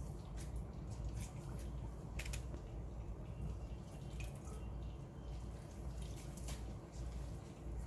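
Lime juice squeezed by hand, dripping and trickling into a little water in a stainless steel pot, a few scattered drops and splashes over a steady low hum.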